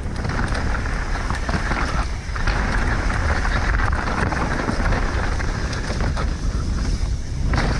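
Wind buffeting the microphone of a mountain bike at speed on a dirt downhill trail. Under it are the steady crackle of knobby tyres rolling over dirt and small stones, and many small clicks and rattles from the Specialized Enduro bike.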